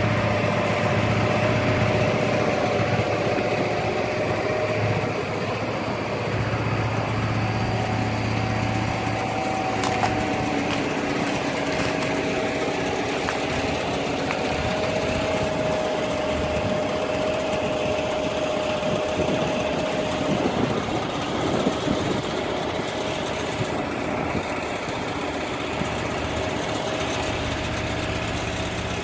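Sawmill engine idling steadily.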